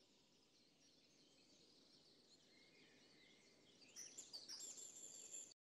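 Faint birdsong: many small birds chirping and twittering, growing louder about four seconds in, with a thin high whistle near the end.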